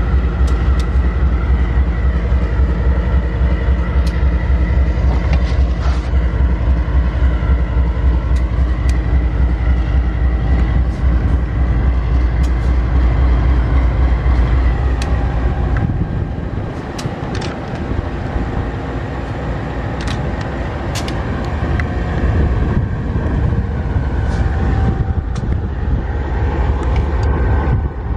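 GE AC44i diesel-electric locomotive engine running with a steady low rumble and a held whine, with scattered sharp clanks from the train; the rumble drops away about sixteen seconds in and a quieter running sound carries on.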